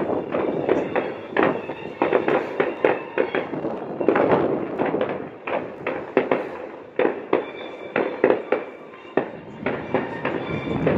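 Fireworks going off: a rapid, irregular string of bangs and crackling from bursting shells, several a second.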